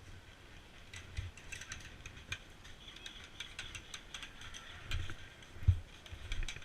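Scattered light clicks and rattles with a few dull thumps, the loudest about two-thirds of the way through: handling and movement noise from an airsoft player's gear and footsteps, picked up by a body-worn camera.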